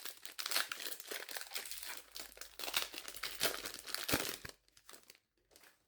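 Crinkling and tearing of a trading-card booster pack wrapper being handled and ripped open, dense for about four and a half seconds, then a few faint rustles.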